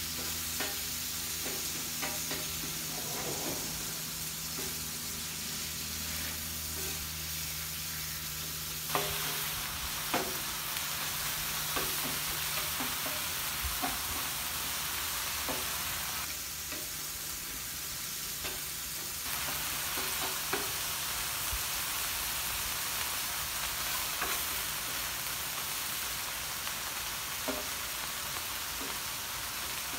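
Ground beef sizzling on a Blackstone flat-top griddle while metal spatulas chop and turn it, with scattered sharp clicks of the blades striking the griddle plate.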